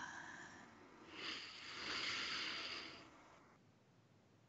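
A woman's slow, deep breath taken right at a studio microphone, a soft rush of air lasting about two seconds from about a second in: one of the deep releasing breaths of a guided breathing meditation.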